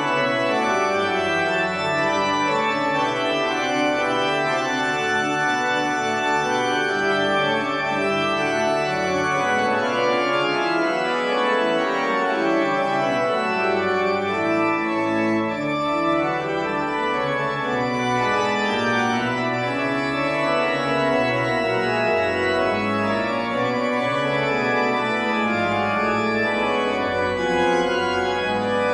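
Background music of slow, sustained chords on an organ-like keyboard sound.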